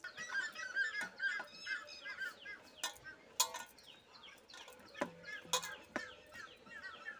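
Birds chirping rapidly and continually, many short quick calls, with a few sharp knocks scattered through.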